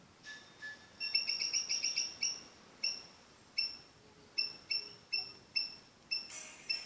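Samsung Duos smartphone speaker giving short, high, same-pitched electronic beeps as its volume sliders are adjusted. A quick run of about eight comes about a second in, then single beeps about every half second. Near the end a jingling tone starts.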